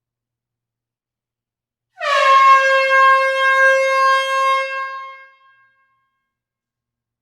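A single long air-horn blast, starting about two seconds in with a slight dip in pitch, holding steady for about three seconds and then fading out.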